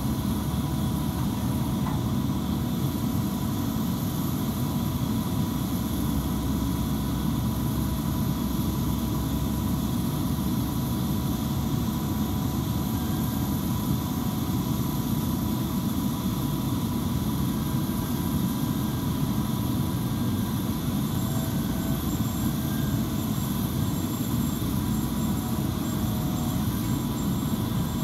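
Airbus A319 jet airliner's engines idling steadily at a standstill: a constant low rumble with a few faint steady whining tones above it.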